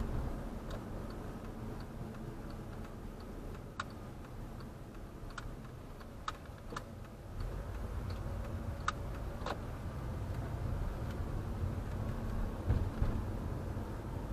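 A car's turn-signal indicator ticking evenly, a few ticks a second, for the first several seconds, over the low rumble of engine and tyres in the cabin. A few sharper single clicks come now and then.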